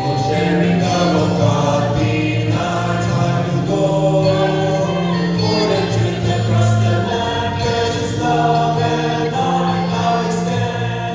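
A choir singing gospel music, with long held notes and no words picked up by the recogniser.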